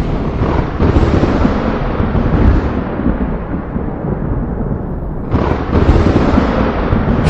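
Thunder rumbling deeply and rolling on from a clap just before, slowly fading, then a fresh sudden clap about five seconds in that starts another heavy rumble.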